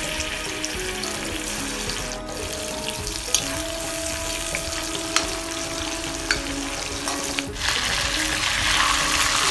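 Masala-coated chicken pieces sizzling as they shallow-fry in hot coconut oil in a kadai, with a few light clicks of a metal spoon turning them. The sizzle grows louder near the end.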